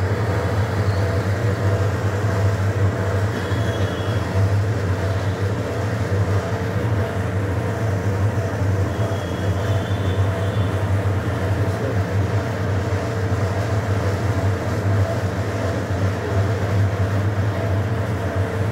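Motor and drive of a spinning chair-swing ride running steadily: a loud, even low hum with a mechanical rumble and faint steady tones.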